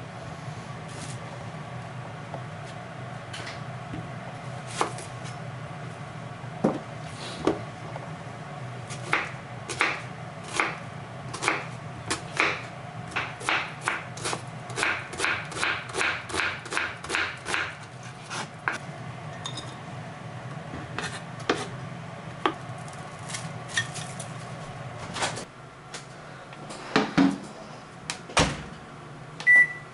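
Knife chopping on a cutting board over a steady low hum. The strokes are scattered at first, then run steadily at about two a second for several seconds in the middle, with a few louder knocks near the end.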